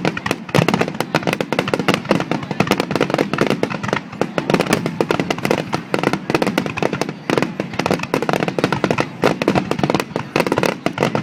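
Fireworks display: a dense, unbroken barrage of bursts and crackles, many sharp cracks a second.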